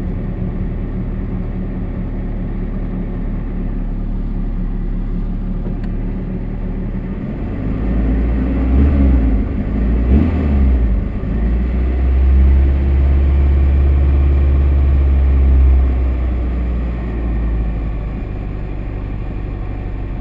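Nissan 240SX engine running, in a car with a vacuum leak. It grows louder with a heavier low rumble for several seconds in the middle, then settles back to a steady idle.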